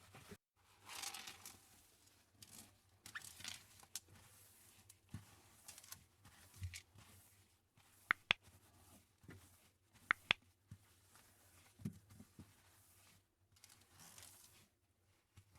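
Faint household handling noises during refrigerator cleaning: scattered rustles and scrapes, with two pairs of sharp clicks about two seconds apart.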